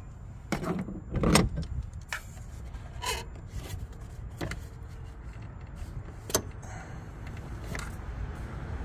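Hands working in a car's engine bay: a series of sharp clicks and knocks from handling the alternator's wiring connector and the multimeter leads, the loudest about a second in, over a steady low rumble.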